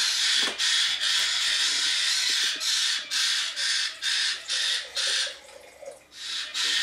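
Parrot chicks squawking: harsh, rasping calls, long at first and then a quicker series of short ones, stopping for about a second around five seconds in before starting again.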